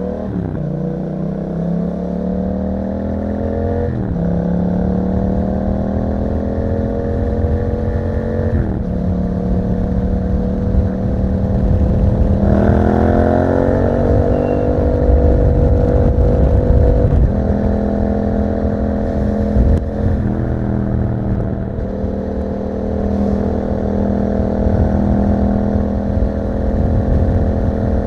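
Yamaha MT-07 parallel-twin engine with an Akrapovič exhaust, pulling up through the gears. Its pitch climbs steadily and drops sharply at each upshift, three times in the first third. About halfway there is a quick jump in revs, then it runs at a fairly steady pitch with a few brief dips off the throttle, over low road and wind noise.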